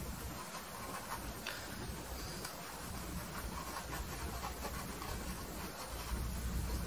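Faint scrubbing and dabbing of a small paintbrush working oil paint onto canvas, with a faint click about a second and a half in, over a low steady hum.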